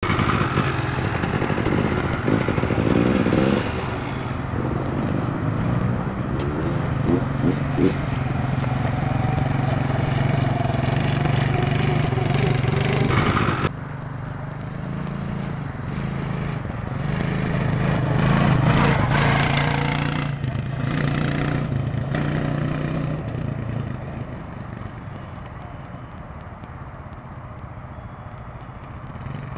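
Utility ATV engine running as it is ridden across loose sand, its pitch rising and falling with the throttle. It drops suddenly about halfway through and gets fainter over the last few seconds as the quad moves away.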